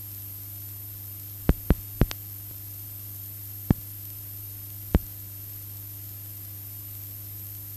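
Steady low electrical hum with a faint high-pitched whine over it, broken by six sharp clicks in the first five seconds. It is the noise floor of an old analogue video transfer with no programme sound.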